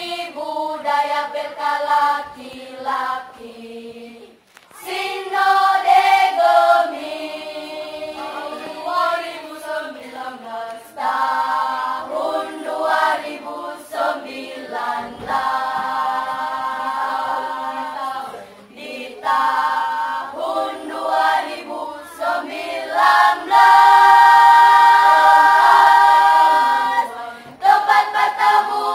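Children's choir singing masamper, the Sangihe tradition of group choral song, unaccompanied, in held notes. The singing dips briefly about four seconds in and swells to a loud held chord near the end.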